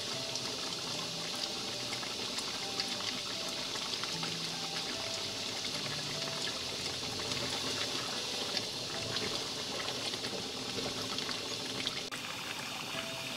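Chicken kalio, chicken pieces in thick coconut-milk curry, bubbling and spattering steadily as it simmers in the pan, with many small pops through a constant hiss.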